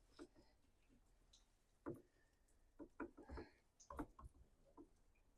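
Faint, scattered clicks and scrapes of a flathead screwdriver working a stubborn, deep-set screw loose on an old McCulloch 3516 chainsaw's housing, a few louder clicks about two, three and four seconds in.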